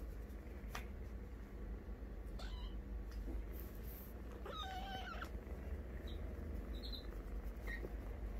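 Kitten meowing: one drawn-out, high meow about halfway through, with a few short faint squeaks before and after it.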